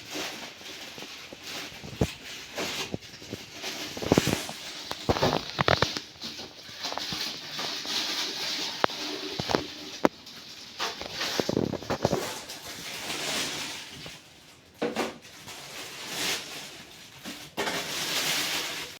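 Rustling and crinkling of packaging, with scattered clicks and light knocks, as a boxed kitchen utensil set of serving spoons, knives and spoons is opened and handled.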